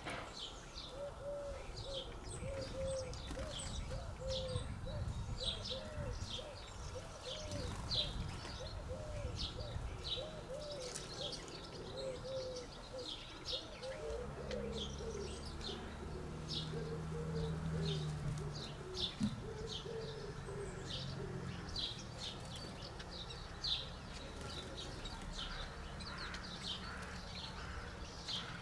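Small garden birds chirping busily, with a pigeon cooing over and over through the first half. A low hum rises for several seconds around the middle.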